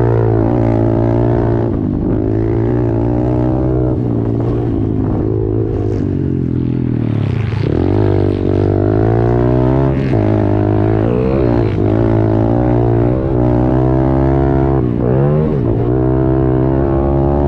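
Honda CRF110 pit bike's small single-cylinder four-stroke engine at race pace, revving up and down with the throttle. The pitch drops sharply about halfway through and again near the end as the rider backs off and shifts, over a steady low drone.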